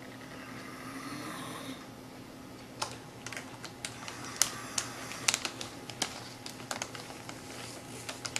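About two seconds of breathy rasping noise, then a run of uneven sharp clicks and taps, in a typing-like rhythm, over a steady low hum.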